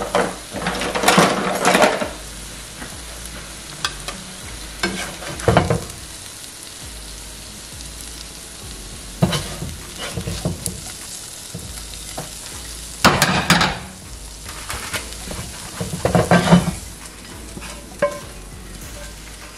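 A spatula scraping and scooping scrambled eggs across a hot skillet in several short bursts, over a steady low sizzle of food still frying in the pan.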